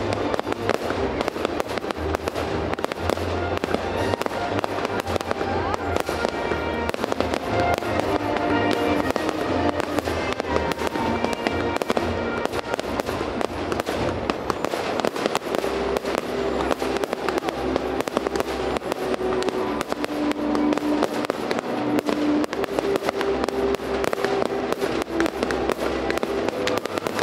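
A fireworks display firing continuously, with a dense, rapid run of bangs and crackling from aerial shells and crackling stars. Music plays steadily underneath.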